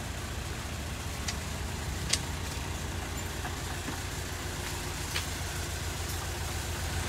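An engine runs with a steady low hum. Over it come a few sharp metallic clicks, the loudest about two seconds in, as the steel bars of a rebar cage are handled.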